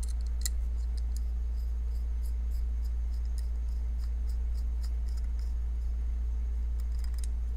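A steady low hum throughout, with faint, scattered small metallic ticks as a precision screwdriver turns a T8 Torx screw in a pocketknife's handle scales, snugging it rather than tightening it down.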